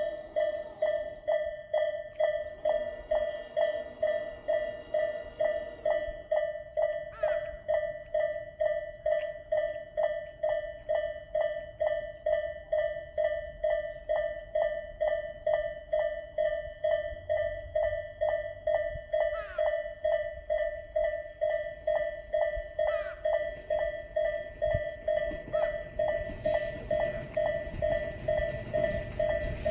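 Japanese level-crossing electronic warning bell, Tobu 'sound A' type, ringing in a steady ding-ding at about two strokes a second. Near the end, the rumble of an approaching train rises beneath it.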